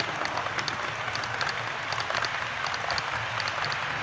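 Model trains running on the layout's track: a steady crackling rumble of small metal wheels on rail, dotted with quick repeated clicks.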